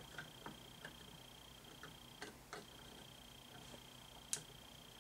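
Faint scattered clicks and taps of hands handling the statue's resin parts, the sharpest a little past four seconds in. A faint steady high-pitched whine runs underneath and drops out briefly a little past two seconds in.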